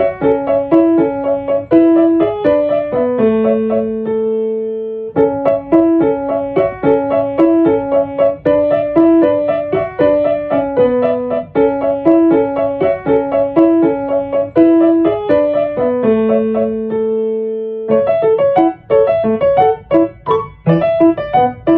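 Background piano music: a steady, repeating melody of even notes that pauses on a held note twice, then changes to a lighter, more detached passage near the end.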